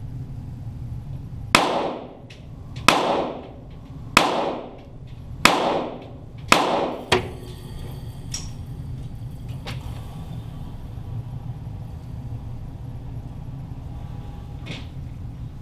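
Five .22 rimfire target pistol shots fired slowly, about 1.3 seconds apart, each echoing in an indoor range, heard from near the targets. After them only a steady low hum and a faint click or two remain.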